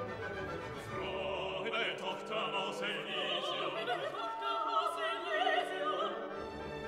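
Classical background music: an operatic singing voice with a wide vibrato over orchestral strings, the voice coming in about a second in and dropping away near the end.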